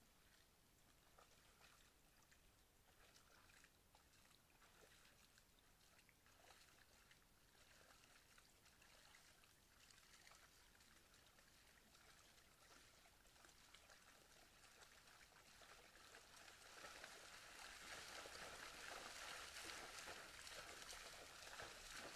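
Faint trickling and splashing water, louder in the last several seconds.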